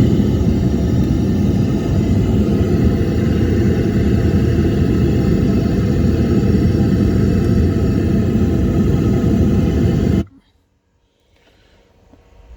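Loud hiss-like test noise played through a car sound system's subwoofers for measuring its frequency response, heaviest in the bass, cutting off suddenly about ten seconds in.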